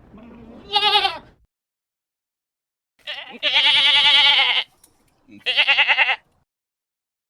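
Goat bleating three times, each call wavering in pitch, the middle one the longest at over a second.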